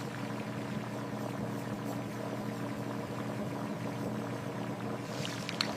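Steady low hum of a running motor, with one short click near the end.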